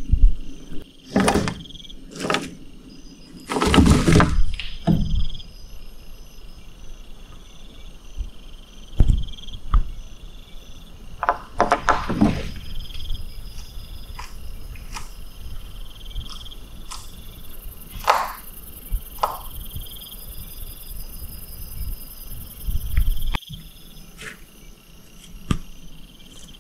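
Insects chirping steadily, a repeating high chirp, with several loud rustling noises over it, the loudest about four seconds in and about twelve seconds in.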